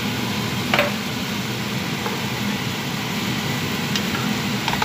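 Steady hiss of chicken cooking in curry paste and coconut milk in a pan. The spatula knocks against the pan about a second in, with a couple of lighter clicks near the end.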